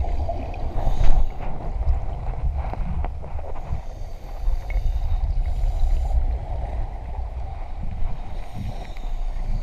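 Muffled water noise as heard by a camera underwater during a scuba dive: a steady low rumble with irregular gurgling and bubbling surges.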